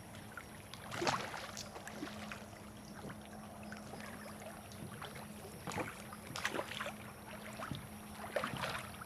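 Small irregular splashes and water lapping around a kayak, soft and scattered, over a faint steady hum.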